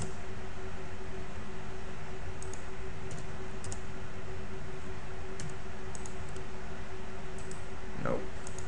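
Scattered computer keyboard keystrokes and mouse clicks, about half a dozen short sharp clicks spread through, over a steady background hum.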